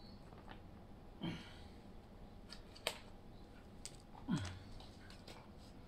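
Faint handling of a torn-open foil ration food pouch: light crinkling with a few sharp clicks and two short low sounds, about a second and about four seconds in.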